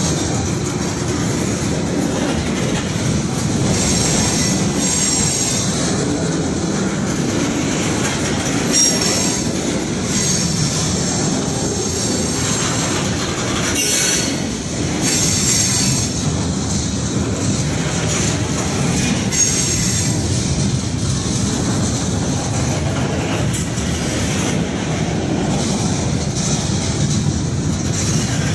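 Freight cars of a slow-moving CSX freight train rolling past close by: a steady rumble of steel wheels on rail, with high-pitched wheel squeal coming and going every few seconds.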